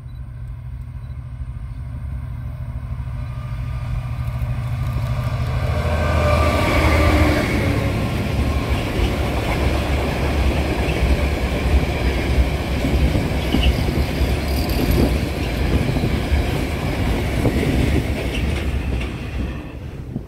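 Freight train of tank wagons passing close. The locomotive's steady low engine hum grows as it approaches and is loudest about six seconds in as it goes by. Then the wagons' wheels rumble on the rails at a steady level until the sound drops away near the end.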